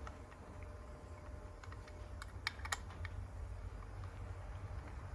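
A few sharp clicks of a torque wrench as freshly Loctited bolts are tightened to spec. The clicks bunch together about two to three seconds in, and the two loudest come close together near the middle.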